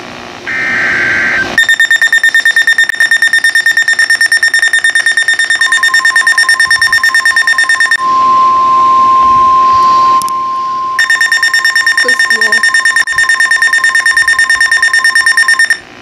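NOAA weather alert radio going off for a flash flood warning. A short burst of the warbling SAME data header is followed by the radio's loud, rapid pulsed alarm beeping. About halfway through, the beeping gives way for about three seconds to the steady 1050 Hz weather-service warning tone, then the pulsed beeping resumes and cuts off abruptly near the end.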